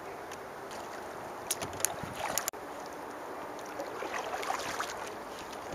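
Water washing and lapping around a canoe, a steady noisy wash, with a few sharp clicks between one and a half and two and a half seconds in. The sound drops out for an instant about halfway through.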